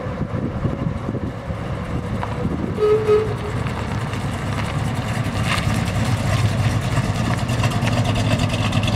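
The 318 cubic-inch Mopar small-block V8 of a custom 1940 Plymouth coupe running at low speed with a steady low rumble as the car rolls forward. About three seconds in, a horn gives two short toots.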